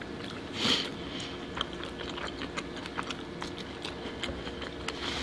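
Close-miked chewing and wet mouth sounds, with small clicks scattered throughout and a louder slurp from a spoon about half a second in.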